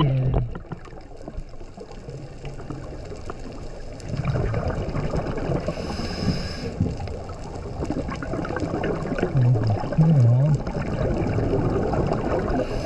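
Scuba regulator breathing underwater: a hissing inhale about six seconds in and another near the end, with the bubbling rush of exhaled air around them.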